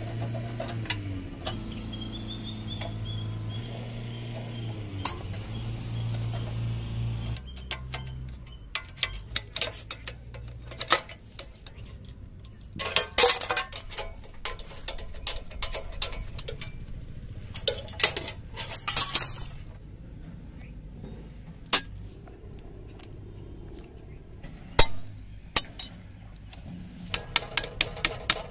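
Hand tools clinking and tapping on the steel moped frame and its bolts during dismantling: scattered sharp metal clicks, with a quick run of even clicks near the end. A steady low hum runs under the first several seconds, then stops.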